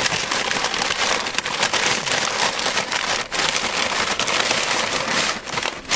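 Paper takeout bag rustling and crinkling as hands rummage inside it, with a brief pause about three seconds in.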